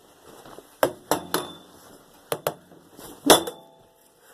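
A microwave oven being struck hard again and again: about six sharp impacts with a clink of glass and metal, the loudest near the end, followed by a brief metallic ring.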